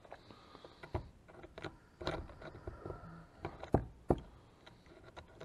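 Scattered sharp knocks and light scraping of a drill bit and a flattened metal bottle cap against a wooden workbench as the bit is set on the cap, with four louder knocks spread through.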